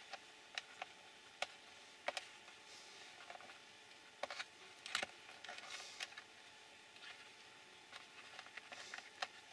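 Scattered light clicks and taps of small plastic parts being handled and fitted on a Tamiya XV-01 PRO radio-control car chassis, with soft rustling of fingers on the parts between them.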